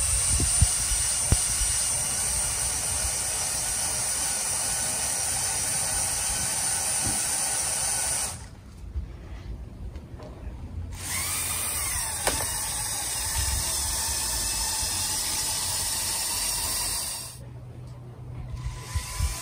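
Lego Technic electric motors, the golf buggy's ten L motors, whining steadily as they strain under heavy load through the drivetrain. The whine drops away twice for a second or two.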